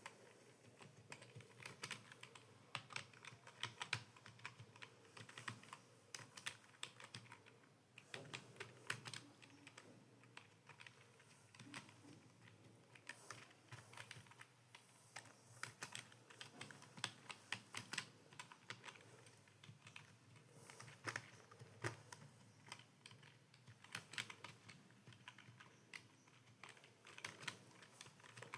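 Computer keyboard typing: quick, irregular runs of keystrokes, with a short pause about eight seconds in.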